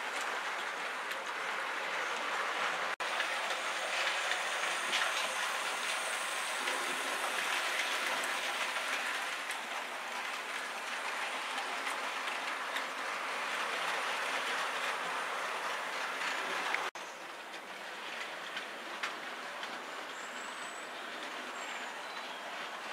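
OO gauge model train of tank wagons and a brake van rolling along the track, a steady clattering of small wheels on rails. The sound breaks off briefly about three seconds in, and drops to a quieter level about seventeen seconds in.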